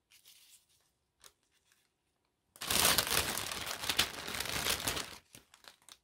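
Crinkly rustling of ribbons and packaging being rummaged through in a craft basket. It starts suddenly about two and a half seconds in and lasts a little over two seconds.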